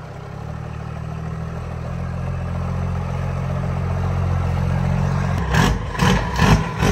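The 12-valve Cummins diesel in a second-generation Dodge Ram 2500 runs steadily, freshly bump-started on a dead battery, as the lifted truck drives slowly along. The low engine note grows gradually louder, and a few sharp, louder noises break in near the end.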